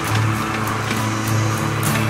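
Background music with a bass line and a steady beat of short high ticks.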